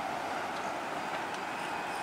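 Steady outdoor background hum, like distant traffic, with a few faint taps as metal ball joint press cups are handled.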